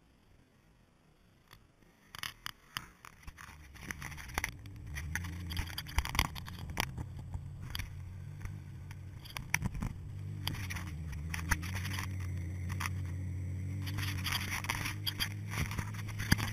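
Four-wheel-drive vehicle's engine running low and steady as it drives up a snowy mountain track, coming in about four seconds in after a quieter start, with scattered crackles and clicks of the tyres over snow and rock.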